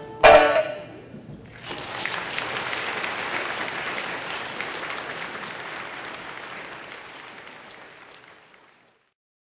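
A pipa's final chord struck hard, ringing briefly. An audience then starts applauding about a second and a half in, and the clapping gradually fades away before the end.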